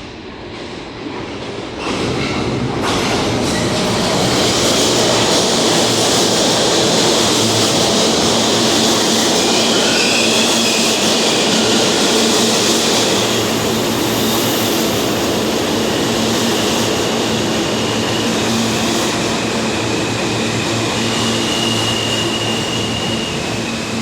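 New York City subway train on the BMT Broadway Line running through the station. The sound builds over the first two seconds, then stays loud and steady, with thin high wheel squeals now and then.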